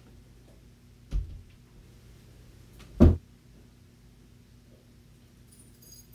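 Two dull thumps on a tabletop about two seconds apart, the second louder, as the drawing paper and reference print are shifted and set down.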